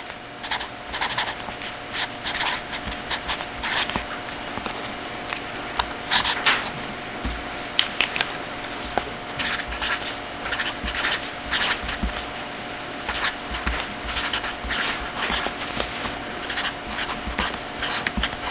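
Hand writing, with short irregular scratching strokes of a pen, marker or chalk as a calculation is written out, over a faint steady hum.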